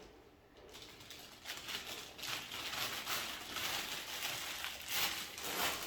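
Packaging rustling and crinkling in irregular bursts as items are handled, starting about a second in.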